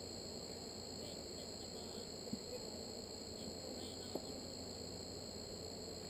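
Steady, high-pitched chirring of an insect chorus such as crickets, unbroken throughout, over a low even hum. Two light knocks come about two and four seconds in.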